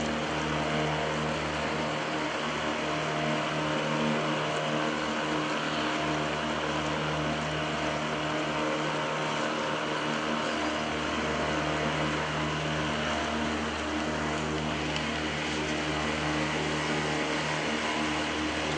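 Motorboat engine running at a steady speed: a constant hum over a steady rushing noise.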